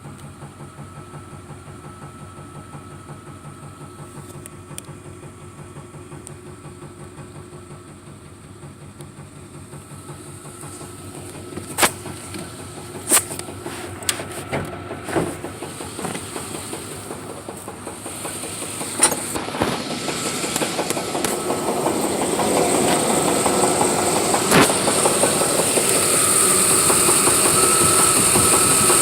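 A 1993 Chevy Silverado's 5.0-litre V8 running with a steady rhythmic knock, which the owner thinks comes from the flex plate area and suspects may be a spun bearing. A few sharp clicks come in the middle, and the engine sound grows louder over the last third.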